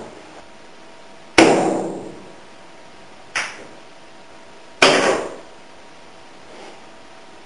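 Pool balls and cue striking on a pool table: three sharp clacks with short ringing tails in the first five seconds, then a faint knock near the end.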